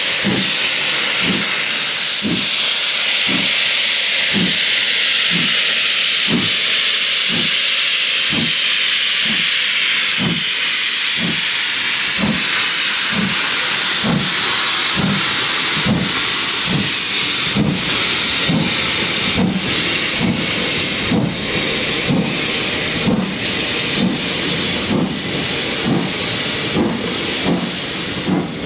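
GWR Castle-class steam locomotive starting away slowly with its cylinder drain cocks open: a loud hiss of escaping steam over slow, even exhaust beats, a little over one a second, quickening slightly towards the end.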